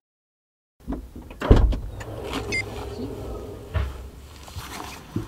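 Knocks, thumps and rustling of bags and camera gear being handled in a car's open rear hatch, with a low rumble underneath. The loudest thump comes about a second and a half in.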